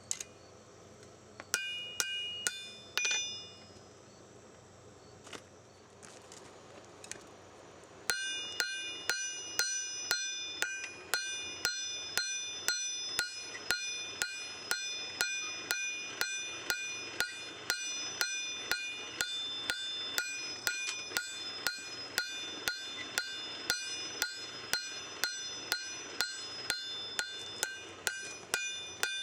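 Hammer blows on steel at an anvil: a few scattered strikes at first, then from about eight seconds a steady run of about two blows a second, each leaving a metallic ring.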